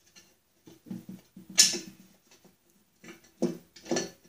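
Knocks and clinks of a flanged nut and bolt being worked by hand against the steel mower deck and spindle housing, with one sharp metallic clink about a second and a half in and two more knocks near the end.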